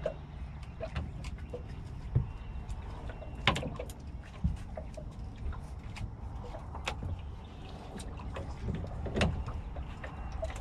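Steady low rumble with scattered sharp knocks and clicks as fishing rods, reels and pliers are handled on a small fiberglass skiff; the sharpest knocks come about two, three and a half, and nine seconds in.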